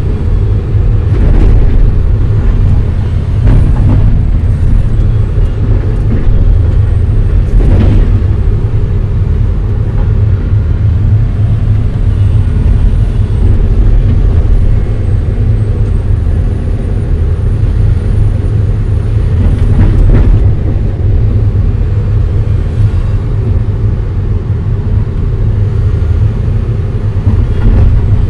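Excavator's diesel engine running steadily and loud, heard from inside the operator's cab, with a few clunks as the machine works.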